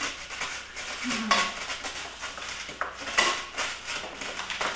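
Kitchen utensils and dishes clinking and clattering: a few separate knocks and clinks, the loudest a little past three seconds in.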